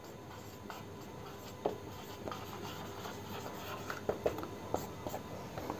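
Marker pen writing on a whiteboard: faint scratching strokes with a few small clicks.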